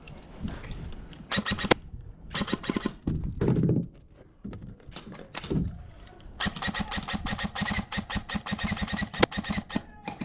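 Airsoft rifle firing: a few short bursts of rapid clicks in the first three seconds, then a long full-auto burst of about three seconds starting around six and a half seconds in.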